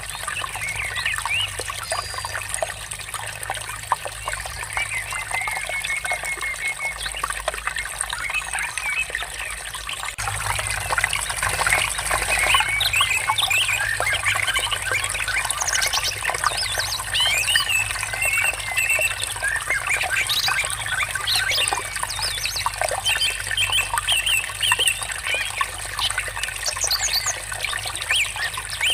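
Flowing, trickling water with many birds chirping and singing over it; the birdsong grows louder and busier about ten seconds in.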